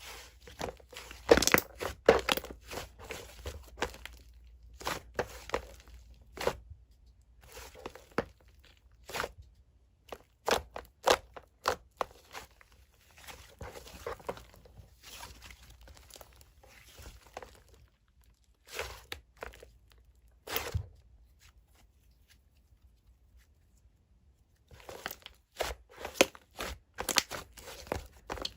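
Mint-chocolate ice-cream slime being squished and stretched by hand, making clusters of sticky pops, clicks and crackles. The sounds pause for about three seconds after about two-thirds of the way, then start again.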